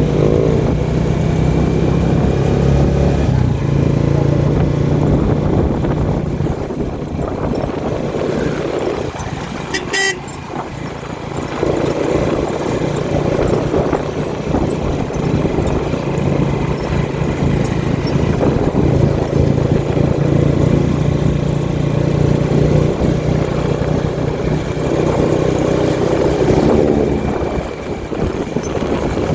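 Motor vehicle engine running on the road amid traffic, with a steady low hum and horns tooting at times. There is a sharp click about ten seconds in.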